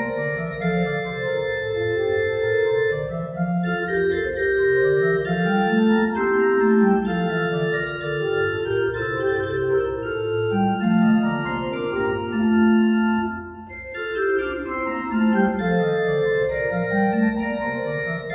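Church organ playing held chords over a bass line that steps up and down, with a brief break between phrases about thirteen seconds in.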